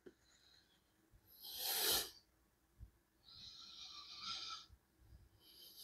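Faint breathing close to the microphone: a short sharp nasal exhale about one and a half seconds in, then a longer, softer breath about three and a half seconds in.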